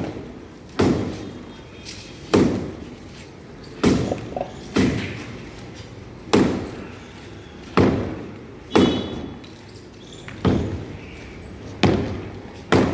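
Sledgehammer blows striking masonry as a house is knocked down by hand: about ten heavy thuds at a steady pace of roughly one every second and a half, each dying away quickly.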